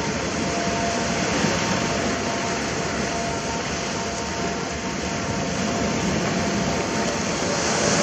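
Ocean surf washing continuously on the shore, a steady rushing wash that swells a little near the end, with a faint steady hum underneath.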